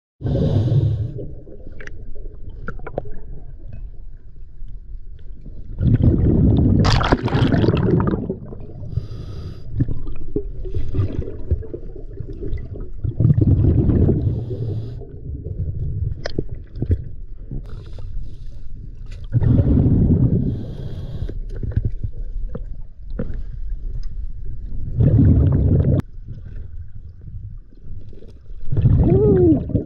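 A scuba diver breathing through a regulator, heard underwater: a low, rumbling burst of exhaled bubbles about every six seconds, with quieter sounds between the breaths.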